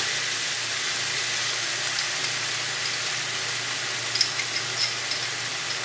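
Taro and potato pieces sizzling steadily in oil in an aluminium kadai as a water-mixed spice paste goes in, with a few faint clicks.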